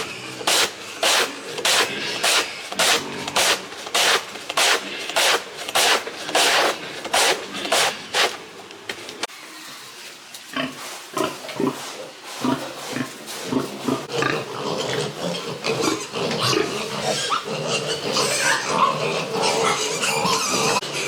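A steady rhythm of short rasping strokes, about two a second, for the first half. Then pigs grunting and squealing, growing busier and louder toward the end.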